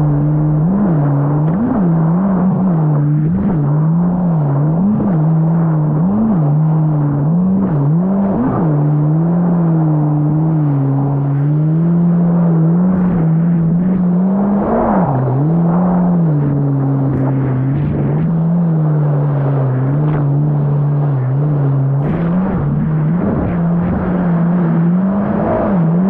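Yamaha GP1800R SVHO jet ski's supercharged four-stroke engine running under way. Its note dips and rises about once a second for the first several seconds, then holds steadier with occasional dips.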